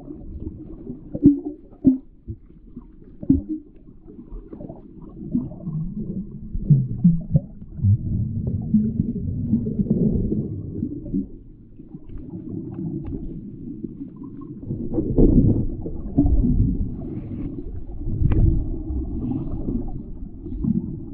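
Muffled underwater sound of water moving and bubbling, heard by a submerged microphone, with scattered knocks and clicks.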